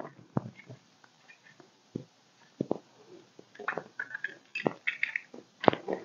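Plastic and metal parts of a wall switch handled and fitted together by hand: scattered light clicks and taps, a few of them sharper, at irregular intervals.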